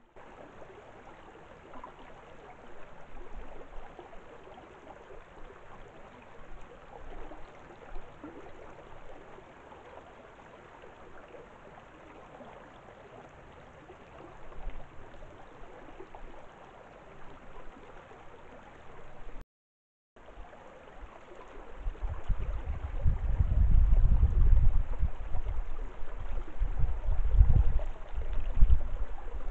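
Steady faint rush of flowing water. About twenty seconds in, heavy low gusts of wind start buffeting the microphone and become the loudest sound.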